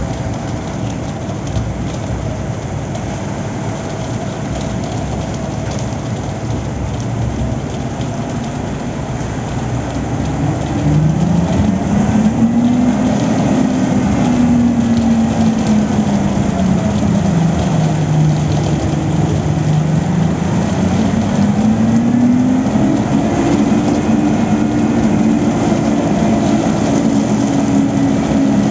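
Diesel engine of heavy construction machinery running steadily. It gets louder about ten seconds in, and its pitch then rises and falls slowly as the revs change.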